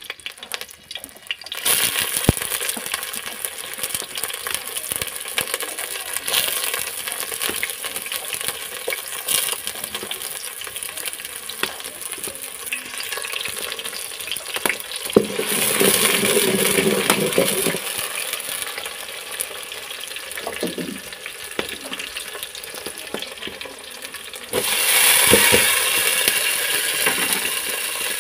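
Chopped onions hitting hot oil in a stainless steel pot over a wood fire, starting to sizzle suddenly shortly after the start and then frying steadily. The sizzle jumps louder near the end as chopped tomatoes go into the pot.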